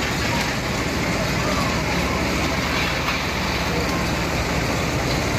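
Steady fairground din: a continuous mechanical rumble mixed with a murmur of voices, with no single sound standing out.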